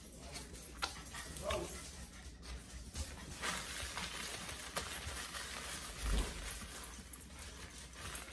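Pet dogs moving about close by, with scattered clicks and scuffles and a low thump about six seconds in.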